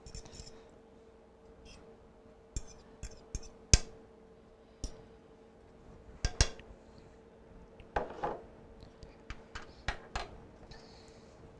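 Metal spoon clinking and scraping against a nonstick skillet while gravy is spooned over meat patties, in scattered taps, the sharpest about four seconds in.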